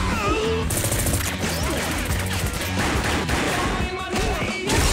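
Fight-scene soundtrack: a music score under several crashes and hits.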